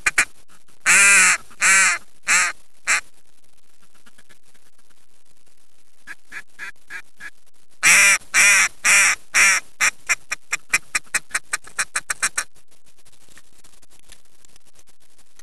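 Duck call blown in loud quacks. A few long quacks come about a second in and a soft run near six seconds. From about eight seconds comes a series of quacks that start long and loud and turn shorter, quicker and softer, in the falling cadence of a hail call meant to draw ducks in.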